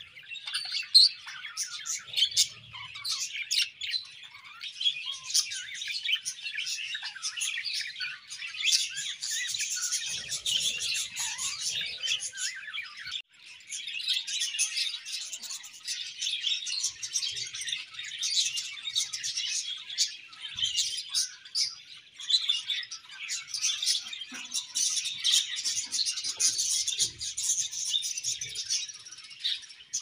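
A colony of budgerigars chirping and chattering continuously, many birds at once, with a momentary break near the middle.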